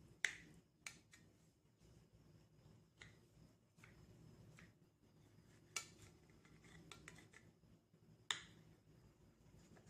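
A kitchen knife cutting through a potato-and-egg Spanish omelette, its blade knocking and scraping against the plate underneath: a handful of sharp clicks, the loudest near the start and about eight seconds in.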